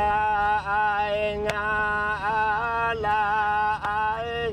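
A voice singing long, held notes that slide a little in pitch between them, with two sharp clicks along the way.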